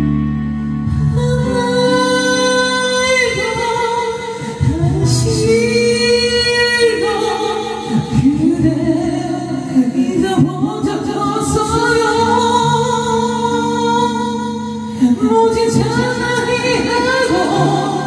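Music: a woman singing long, held notes with vibrato over an instrumental backing track.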